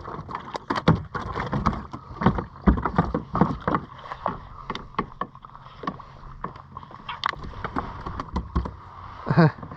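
Irregular knocks, taps and clatter of hands handling gear on a plastic sit-on-top fishing kayak, with a faint steady low hum underneath.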